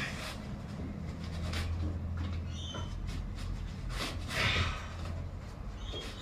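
Hands working an accessory belt over an engine's pulleys: scattered rustles and light scrapes, the strongest about four and a half seconds in, over a steady low hum.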